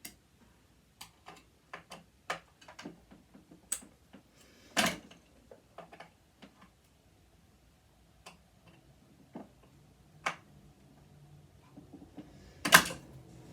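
Irregular small clicks and clacks of a screwdriver and loose metal parts being handled while a sewing machine is taken apart, with louder knocks about five seconds in and near the end.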